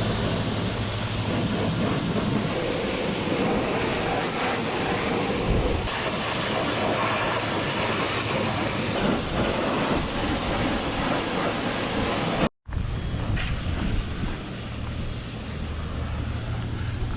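High-pressure washer running, its water jet hissing and spattering against farm machinery over the steady hum of the washer's pump. The sound cuts out abruptly about twelve seconds in and comes straight back with less hiss.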